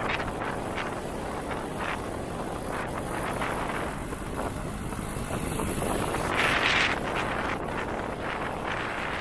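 Wind rushing over the microphone of a moving vehicle, with steady engine and road noise, and a louder rush about six and a half seconds in.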